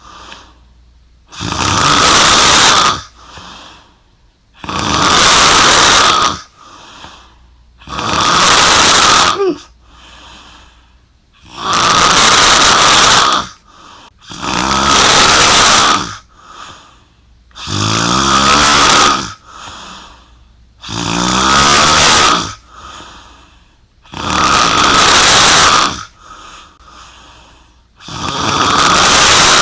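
A woman snoring loudly, one long noisy snore about every three seconds, nine in all, with softer breaths between. Several of the middle snores take on a vibrating, buzzing pitch.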